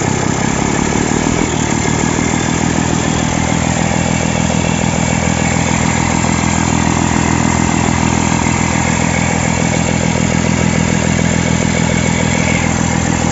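Cummins 5.9 inline-six turbo diesel running steadily with its valve cover off, the rocker arms and valve train open to the air. The engine has chewed up several pushrods, bending them.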